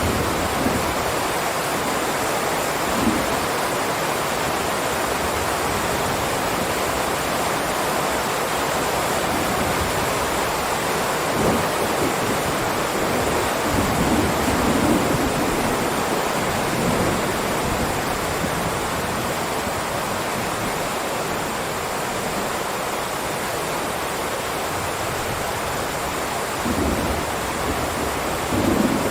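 Heavy rain falling in a steady, dense downpour, with a few brief low swells in the middle and near the end.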